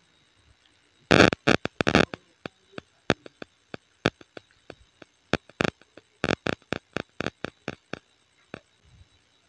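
Steel spoon clinking and scraping against a steel bowl and plate while dal is spooned over rice. The clinks come quickly and loudest about a second in, then as scattered single clicks until near the end.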